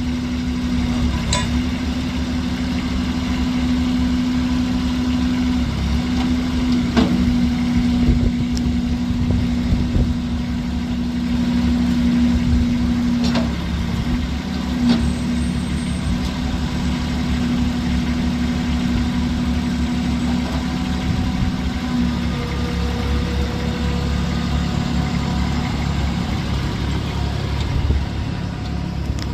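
Kubota B21 tractor loader backhoe's 19 HP Kubota diesel running steadily, with a steady hum that drops to a lower pitch about three-quarters of the way through. A few short clicks sound over it.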